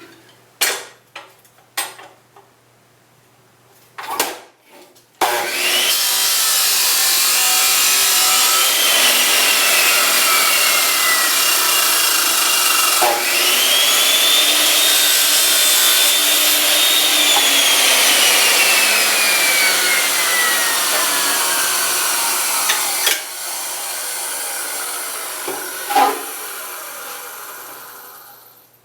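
A power saw cutting through a piece of 3/4 by 1/8 inch flat bar stock. It starts a few seconds in after some clicks and runs steadily, with a whine that slides slowly down in pitch as the cut goes on. A knock comes near the end before it winds down.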